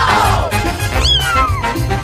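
Background music, with a cat meowing once about a second in: a single call falling in pitch.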